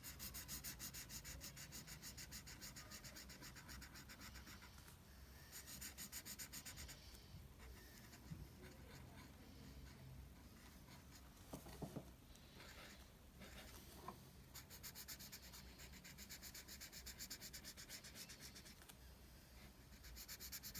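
Black marker scribbling on sketchbook paper in quick back-and-forth colouring strokes. It is faint and comes in spells with short pauses.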